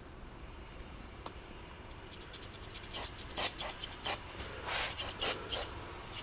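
Short, irregular scratching and rubbing strokes from carburetor parts being cleaned by hand, starting about three seconds in after a quiet stretch.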